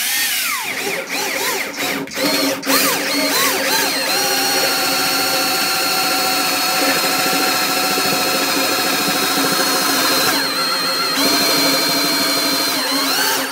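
Cordless drill turning a half-inch step bit into the end block of an acoustic guitar, opening the endpin hole for a pickup's output jack. The motor starts in short spurts, its pitch rising and falling, then runs steadily at speed for most of the time as the bit cuts into the deep block.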